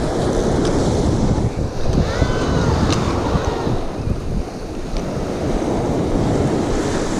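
Wind buffeting the microphone, over the wash of small surf breaking on the beach.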